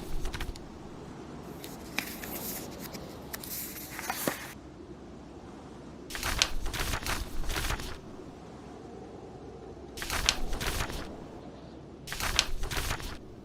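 Paper book pages being turned, a crisp rustle with small snaps lasting a second or two, four times over a steady low rumble of blizzard wind and fire.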